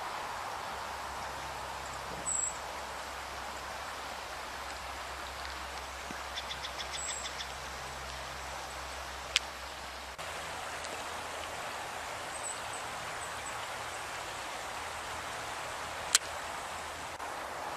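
Steady rushing of river water, with a few brief high chirps and two sharp clicks, one about nine seconds in and one about sixteen seconds in.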